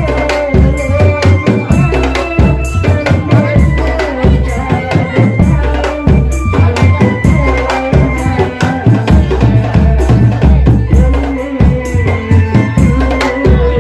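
Drum band playing loudly: a steady pounding beat of bass drums with snare hits, and a pitched melody over the top.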